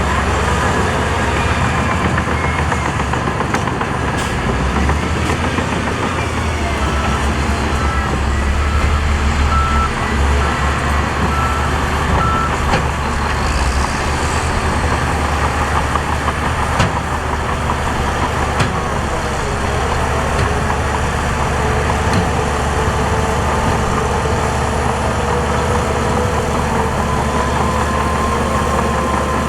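Heavy construction machinery engine running steadily. A reversing alarm sounds a string of short, evenly spaced beeps for about five seconds, roughly a quarter of the way in.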